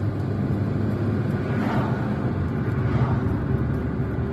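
Steady engine and road hum of a moving car, heard from inside the cabin.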